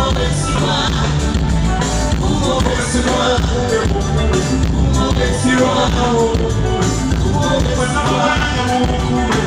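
Band music with a steady bass beat and a sung melody.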